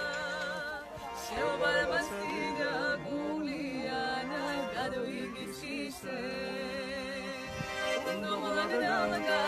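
A woman singing with a wavering vibrato, accompanied by a piano accordion holding sustained chords.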